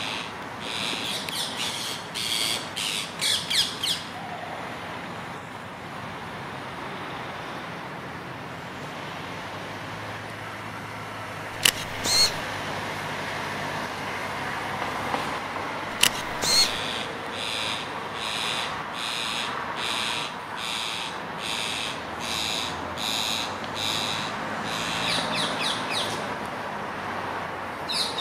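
Rose-ringed parakeets giving harsh, shrill squawking calls while squabbling over a nest site: a quick series near the start, a few single sharp calls midway, then a long regular run of calls at about one and a half a second.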